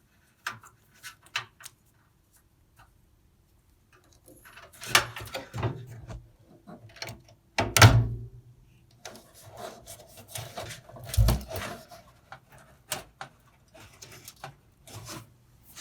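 Clicks, knocks and rubbing of hands working inside a desktop computer case, plugging the power-supply cables and connectors back in, with heavier thumps about eight and eleven seconds in.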